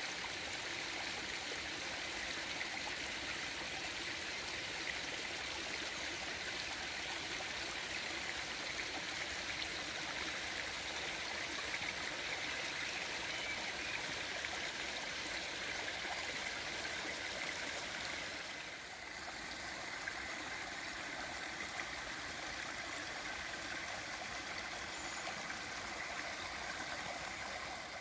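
Small river running steadily, trickling and splashing through a beaver dam of piled sticks. It dips briefly about two-thirds of the way through, then goes on a little duller.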